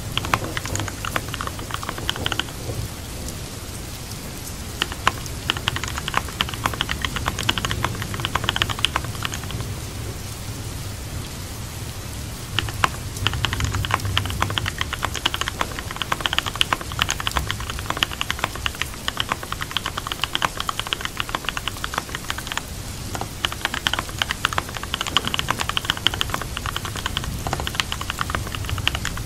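Computer keyboard typing in runs of quick clicks, pausing for a few seconds now and then, over steady rain.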